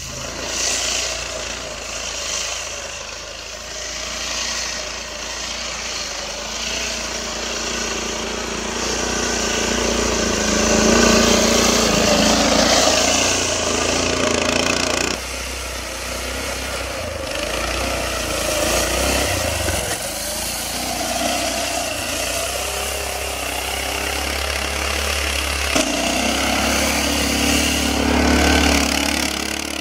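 Engine of a Sibir 2×2 all-wheel-drive two-wheeled all-terrain motorcycle running under load and revving up and down as it ploughs through deep snow. The sound changes abruptly twice where different shots are joined.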